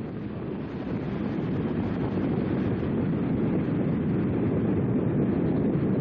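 Wind buffeting the microphone: a steady rushing rumble that grows louder over the first couple of seconds and then holds.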